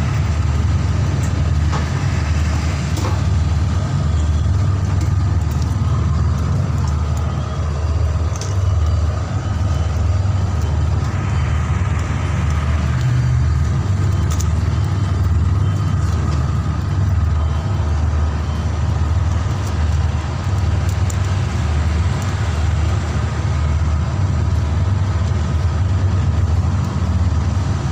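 A steady low rumble, with a few faint light clicks now and then.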